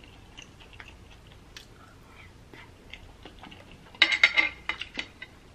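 Quiet chewing of a mouthful of birria ramen noodles, with small wet mouth clicks. About four seconds in comes a short, louder burst of clatter as the metal fork is put down on the serving tray.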